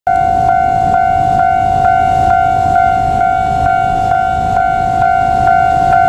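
Japanese railway level-crossing warning bell ringing: an electronic clanging tone struck a little over twice a second, the signal that the crossing is closed for an approaching train.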